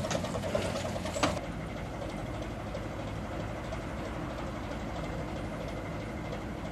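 Crawler crane's diesel engine running steadily while lifting a catamaran. A couple of sharp clicks come before it, in the first second and a half.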